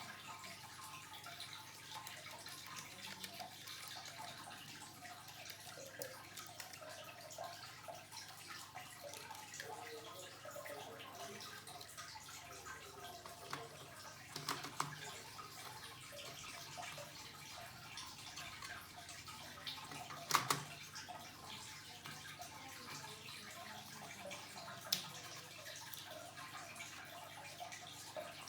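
Faint, scattered ticking and rustling over a low hiss, with three sharper clicks about halfway through, two-thirds through and near the end; the middle one is the loudest.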